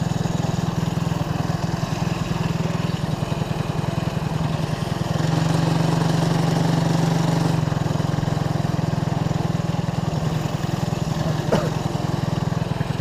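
RX-250 rental go-kart's engine running under throttle, heard from on board the kart. Its steady note grows louder from about five to seven and a half seconds in. A brief knock comes near the end.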